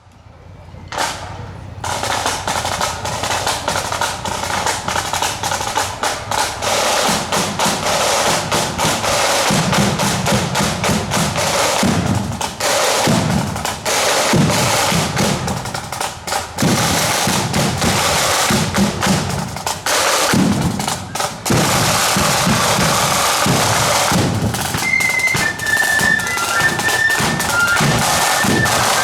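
Marching band drum section playing: snare drums rattling and rolling, joined by a bass drum beating from about seven seconds in. A few high, thin held notes come in near the end.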